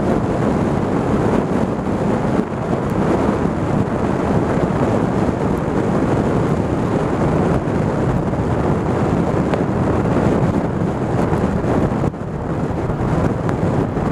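Wind rushing over the microphone of a camera on a moving motorcycle, a loud steady noise with the bike's engine and road noise mixed in. It dips briefly twice, the second time near the end.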